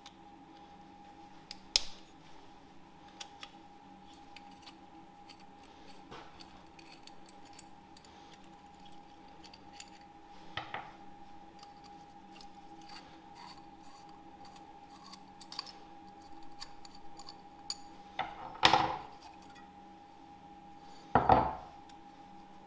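Scattered metallic clicks and clinks of hand tools on engine hardware as the secondary air injection valve is taken off a VR6 engine, with the two loudest clanks near the end. A steady faint hum runs underneath.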